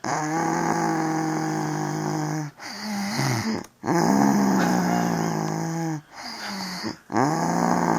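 Really loud snoring with a lowing, cow-like pitch. Three long drawn-out pitched snores, each about two seconds, alternate with shorter, quieter breaths.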